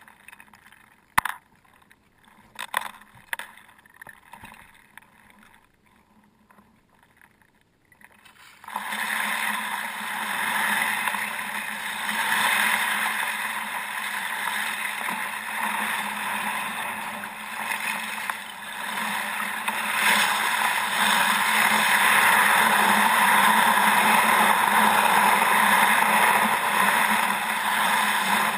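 A kayak on a lake with ice: a few sharp knocks in the first few seconds, then from about nine seconds in a sudden, loud, steady noise of the hull running through lake ice, which carries on without a break.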